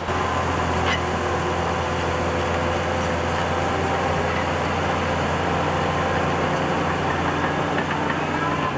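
Heavy diesel engine of construction machinery running steadily at an even, low pitch.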